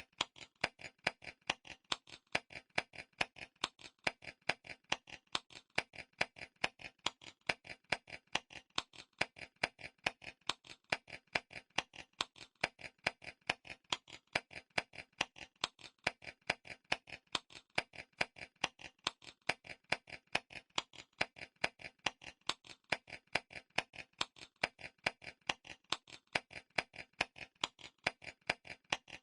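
Clock timer ticking steadily with reverb added, a regular run of sharp ticks with louder and softer ticks alternating.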